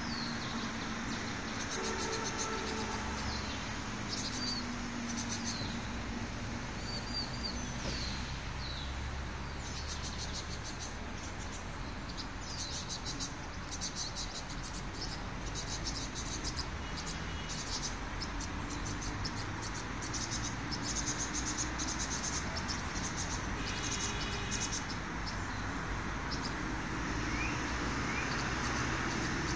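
Outdoor ambience of insects chirring in repeated runs of fast high pulses, with a few short bird chirps and a steady low rumble underneath.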